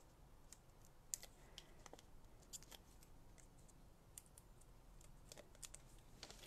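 Near silence broken by faint, scattered clicks and ticks of paper-crafting supplies being handled.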